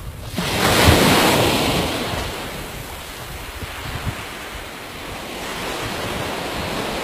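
Ocean surf washing up a sandy beach, with wind buffeting the microphone. One swell of noise comes about half a second in and fades over the next two seconds, then a steadier wash continues.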